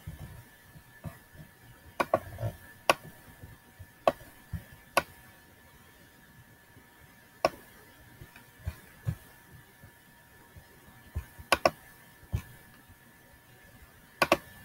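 Irregular sharp clicks of computer input during digital painting, about fifteen in all, some in quick pairs, over a faint steady high-pitched whine.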